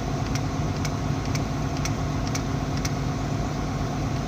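Volvo excavator's diesel engine idling steadily, with a light, regular tick about twice a second.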